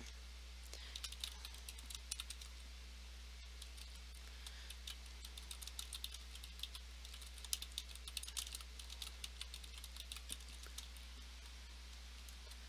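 Typing on a computer keyboard: faint, quick runs of key clicks with short pauses between words, over a low steady hum.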